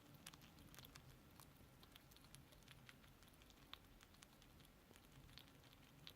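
Faint, irregular small clicks and crunches of a small animal nibbling and chewing food.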